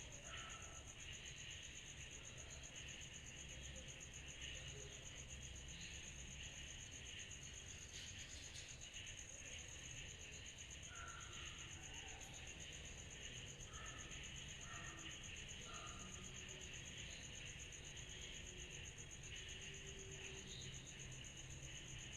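Night insect chorus: one steady high trill with a fine, rapid pulse, over a softer hiss of many more insects, with a few short lower chirps about halfway through.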